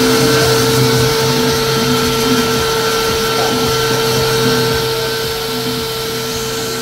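Electric random orbital sander fitted with a dust-extraction vacuum hose, running steadily while sanding a wall panel: a constant whine over a rushing hiss.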